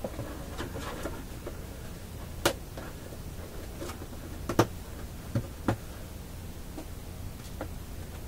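Staples being pried out of the antenna's cover with a small blade: a scatter of sharp clicks and snaps, the loudest about two and a half seconds in and again at about four and a half, over a steady low hum.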